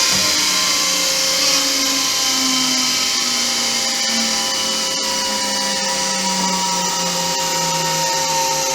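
Landis 2R universal grinder running: a steady mechanical whine of several tones over a hiss, with some of the tones slowly sliding lower in pitch.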